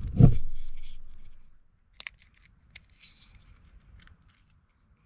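Small pocket knife carving a new hole into a piece of wood: a few sharp clicks and short scrapes of the blade on the wood. Before them, a louder low rumble at the start fades out over about a second and a half.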